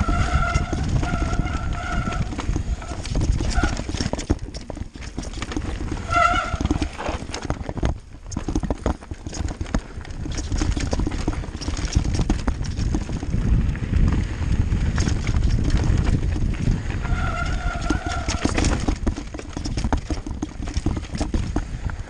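Mountain bike rattling and thudding over a rocky, rough trail on a fast downhill: tyres, suspension and frame taking rapid knocks, with rumble on the microphone. Brief squeals from the disc brakes come three times, near the start, about six seconds in and about seventeen seconds in.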